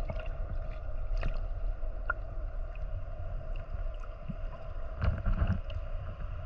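Underwater ambience heard through a submerged camera: a steady low rumble with a constant hum and a few faint clicks and crackles.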